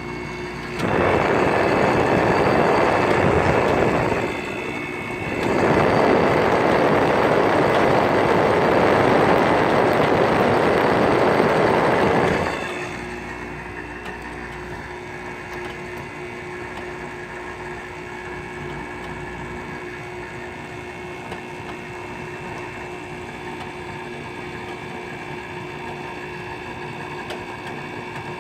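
Fedders 5,000 BTU window air conditioner running with a steady hum. Twice, for about three seconds and then about seven seconds, a loud, even rush of air rises over the hum and then drops away.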